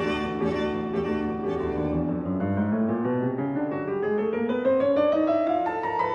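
Instrumental background music of piano with bowed strings. Over the second half the melody climbs steadily in pitch.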